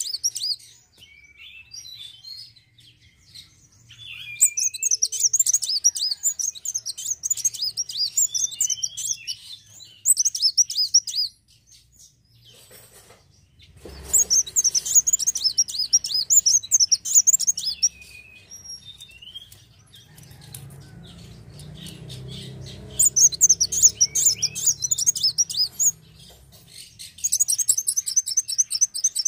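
Kolibri wulung (Van Hasselt's sunbird) singing in repeated bursts of fast, high, chattering trills, each a few seconds long, with short pauses between.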